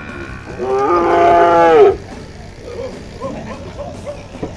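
A bovine mooing once, one loud call of just over a second that drops in pitch as it ends.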